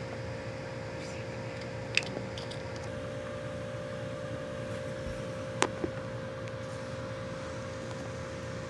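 Steady room hum with a constant droning tone, broken twice by small sharp clicks, about two seconds and five and a half seconds in, as a toy figure and a tiny pencil are handled.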